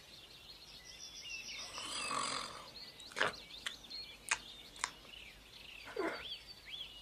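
Soft ambience of small birds chirping, many short high chirps throughout. A few light clicks come between about three and five seconds in, and a short falling vocal sound comes near six seconds.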